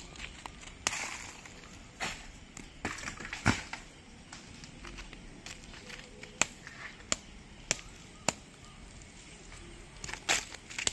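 Sharp chopping knocks from a knife up in a coconut palm, cutting tender coconuts: about ten strokes at uneven intervals, the loudest about three and a half seconds in, with a quicker run of four strokes in the middle.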